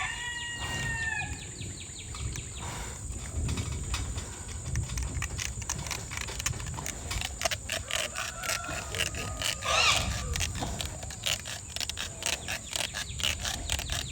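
A rooster crows once at the start. Then a tied-down boar grunts low while a fast run of small clicks and scrapes comes from its tusk being cut.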